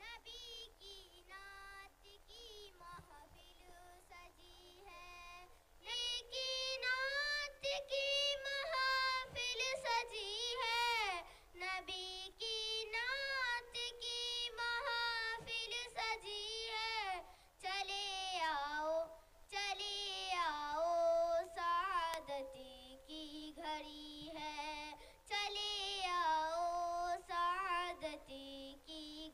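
A young girl singing a naat solo into a microphone, with long, ornamented sung lines. It is very faint for the first six seconds or so, then plainly louder.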